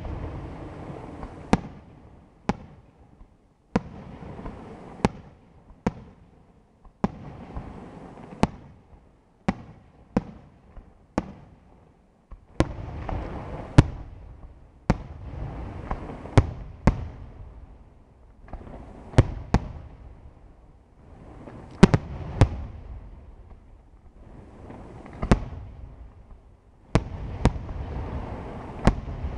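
Aerial firework shells bursting in a steady sequence, loud sharp bangs coming roughly once a second. A rumbling, noisy wash of sound rises and falls between the bangs.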